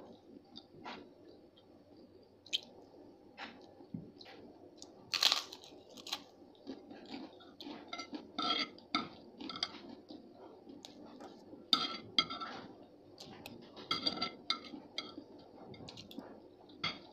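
A person eating close to the microphone: crunchy chewing in bursts, with metal spoon and fork clinking and scraping on a plate. The sharpest click comes about five seconds in.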